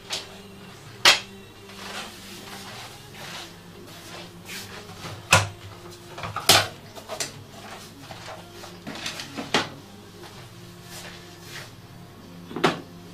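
Wooden parts and hand tools being handled on a workbench: scattered sharp knocks and clacks, about six louder ones, over a faint steady hum.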